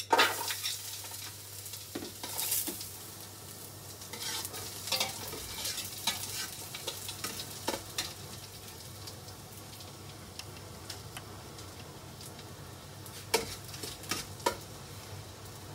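Chopped garlic sizzling in hot cooking oil in an aluminium pot, loudest as it goes in and then settling to a steady frying hiss. A metal utensil stirs it, scraping and knocking against the pot, with two sharp knocks near the end.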